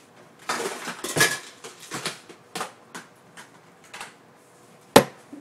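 Small hard objects rattling and clinking as they are rummaged through and handled, then a few separate clicks and one sharp, loud click near the end.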